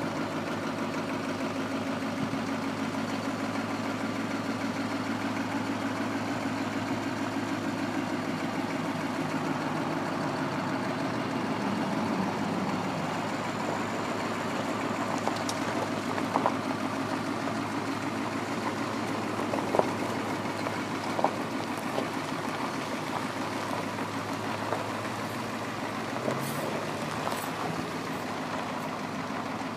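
Detroit Diesel 8.2L V8 diesel of an Ottawa YT-30 yard spotter truck idling steadily, its cab tilted up off the engine. A few sharp clicks around the middle.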